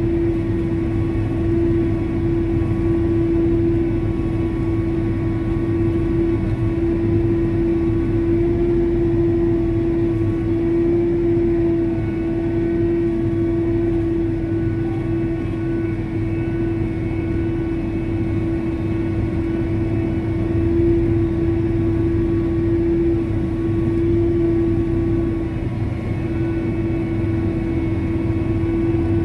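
Self-propelled crop sprayer running as it drives across a field, heard from inside the cab: a steady engine drone with one constant tone held over it.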